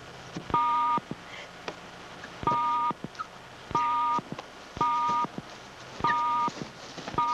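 Electronic two-tone beeps, each held for about half a second and repeated at uneven gaps of one to two seconds, five times and a sixth starting near the end.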